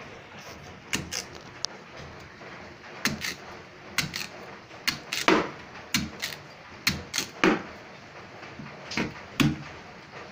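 Kitchen knife chopping a raw cassava root into chunks on a stainless steel drainboard. The knocks come irregularly, a dozen or so, some with a dull thud as the blade goes through the tough root and meets the steel.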